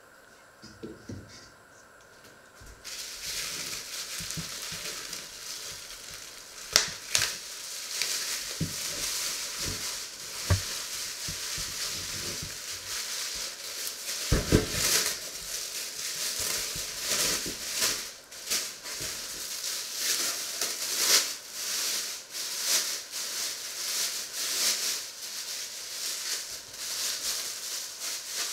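Hot pan on a stove sizzling: a steady hiss with many scattered crackles and pops, setting in about three seconds in.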